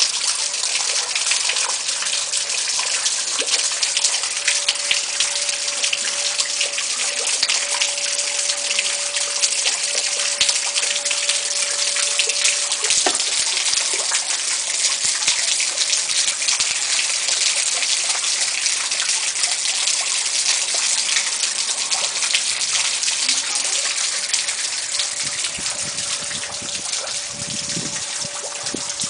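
Water rushing and splashing steadily with a fine crackle, from a small flood on a house's porch.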